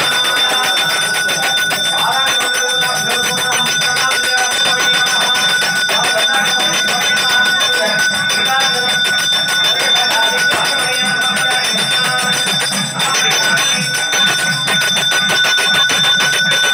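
Temple bell rung rapidly and without a break during the camphor-lamp aarti, its ringing held steady, with voices underneath.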